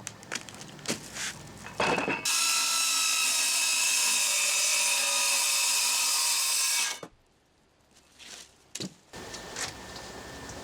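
Power saw cutting through a fiberglass-skinned Nidacore panel: a steady, high-pitched whine from about two seconds in, cutting off sharply about five seconds later. A few knocks and handling sounds come before and after the cut.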